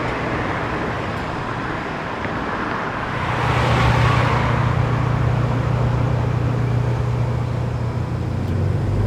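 Road traffic noise: a vehicle swells past about three to four seconds in, and a steady low engine hum holds from then on.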